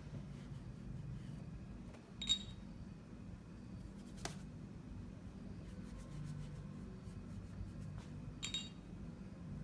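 A watercolour brush dabbing and scrubbing on paper and in a metal palette tin, with small scattered ticks. Two brief ringing taps come about two seconds in and near the end, over a low steady hum.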